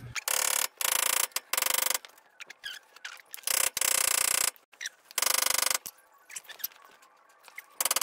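Socket ratchet clicking in short bursts of rapid clicks, about six times, as a nut on a Jeep Wrangler JL's steering linkage is turned.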